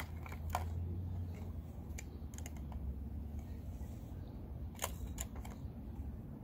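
Plastic toy doctor-kit pieces clicking and clattering as they are fitted into a plastic carry case. The light clicks come singly, with a few close together about five seconds in, over a low steady hum.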